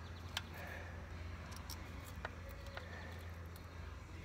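A few faint clicks and light rattles as a battery-charger jumper harness and its ring terminals are handled over a tractor battery, over a steady low hum.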